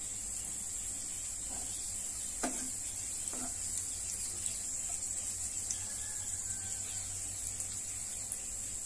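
Butter sizzling as it melts and foams in a non-stick pan, with a steady hiss. A wooden spatula stirs it, knocking lightly against the pan a few times.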